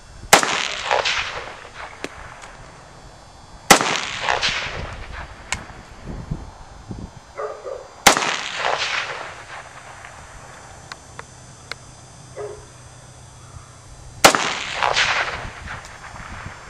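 Chinese SKS semi-automatic rifle (7.62×39 mm) firing four single aimed shots several seconds apart. Each sharp report trails off in echo for about a second.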